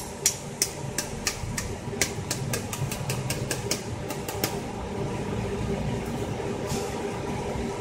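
A metal spoon tapping a raw egg's shell to crack it: a quick run of light clicks, about five a second, that stops about four and a half seconds in, with one more tap near the end. A steady background hum runs underneath.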